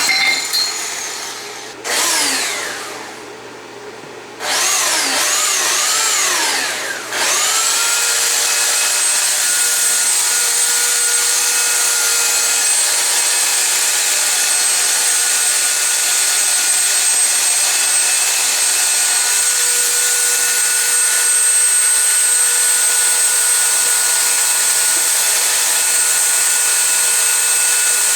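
Electric power tool cutting into the PTO shaft tube: its motor speed dips and recovers several times in the first seven seconds, then it runs on at a steady high whine.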